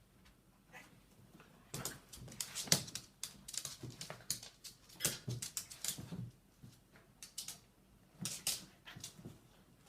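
A cat and a dog scuffling: a string of short, irregular scratchy bursts, busiest from about two seconds in.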